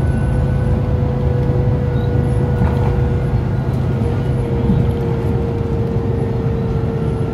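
Inside a moving MTA city bus: steady engine and road rumble with a constant whine, which drops slightly in pitch about four seconds in.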